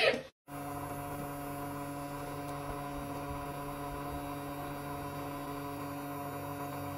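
A steady, unchanging hum made of several held tones over a faint hiss.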